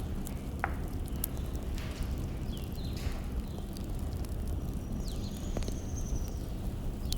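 Wood fire burning steadily, with sparse sharp crackles and pops over a low rumble, and a few short high chirps and whistles.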